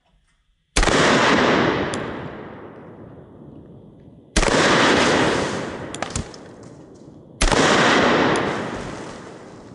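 Three heavy blasts about three seconds apart as pistol shots set off exploding targets, each blast rolling away slowly over a few seconds. A few sharper, thinner cracks fall between them.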